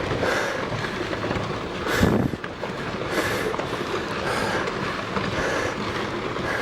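Rockfall on a volcano slope: a continuous rumbling clatter of rocks tumbling downhill, with a sharper, louder crash about two seconds in.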